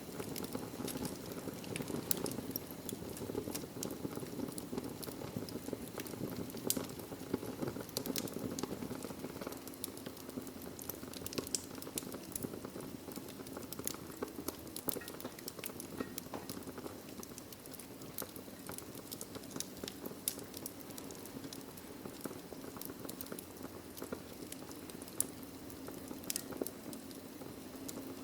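Wood fire burning in a fireplace: a steady low rushing of flames with frequent sharp crackles and pops from the burning logs, scattered irregularly throughout.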